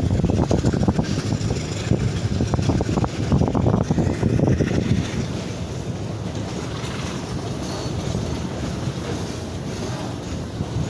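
Loaded freight train rolling slowly past on badly maintained track, its wheels clattering and knocking irregularly over the rails; the knocking thins out about five seconds in, leaving a steadier rumble. Wind buffets the microphone.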